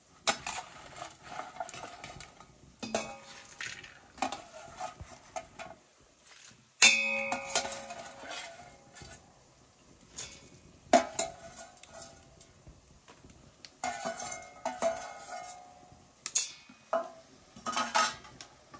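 Stainless steel skimmer and spoon scraping and clinking against a steel plate and bowl as fried bhajis are shifted, in irregular knocks with short metallic ringing. The loudest clanks come about seven and eleven seconds in.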